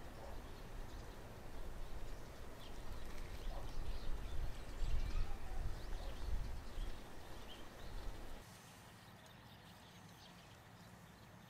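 Outdoor ambience: a fluctuating low rumble of wind on the microphone with scattered faint bird chirps. The rumble stops abruptly about eight seconds in, leaving quieter ambience with a few chirps.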